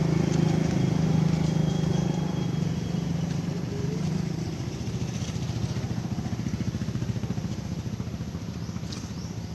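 A small engine running steadily, then fading gradually over the second half.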